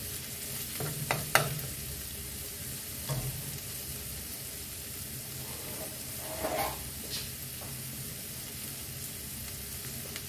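Chopped prawns and kimchi sizzling in a nonstick frying pan over a gas flame, with a spatula scraping and clicking against the pan about a second in. A few more clicks come later while the food fries on its own.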